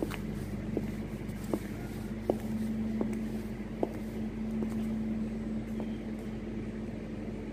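Footsteps on a brick-paved floor at an even walking pace, about one step every three-quarters of a second, fading out about halfway through, over a steady low hum.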